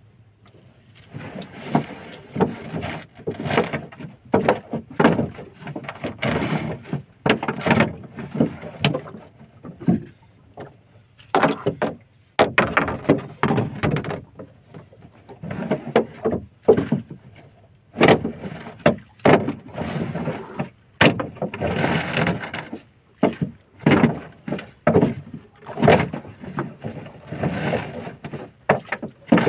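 Collapsible net crab traps being hauled and handled in a small open boat: irregular knocks and thuds against the hull, with rustling of netting, many times over.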